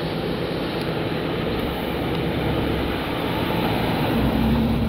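1953 Oldsmobile Super 88's 303-cubic-inch V8 running as the car rolls slowly forward, a steady low engine note over a hiss. A slightly higher steady tone joins about four seconds in.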